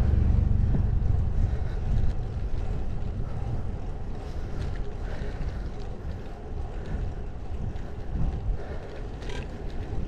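Wind rumbling on a GoPro's microphone while riding a bicycle, a steady low rumble that is strongest over the first couple of seconds and then eases a little.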